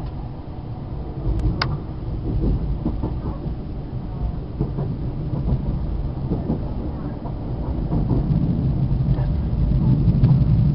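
Steady rumble of a moving passenger train heard from inside the carriage, wheels running on the rails with a few faint clicks. It grows slowly louder toward the end.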